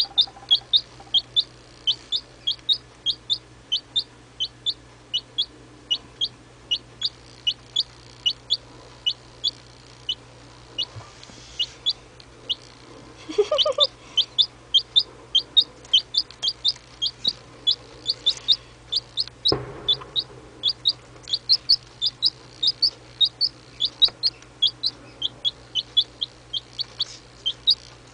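Young chicken chick, a few weeks old, peeping repeatedly: short high falling peeps, two to three a second. About halfway through there is a brief lower-pitched call, and a single knock a few seconds later.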